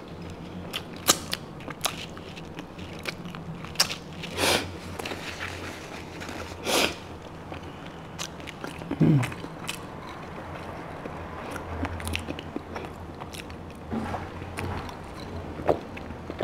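Close-miked chewing and mouth sounds of a person eating roast lamb, with scattered small clicks and a few short noisy bursts over a low steady hum.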